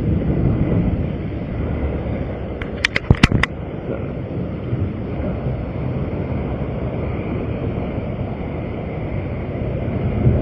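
Steady rumble of interstate traffic with wind on the microphone. About three seconds in, a quick run of five or six sharp clicks.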